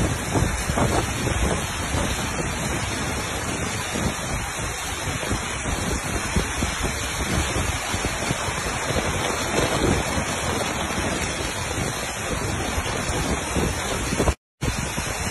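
Steady rush of heavy rain and wind, with wind gusting against the microphone; the sound cuts out completely for a split second near the end.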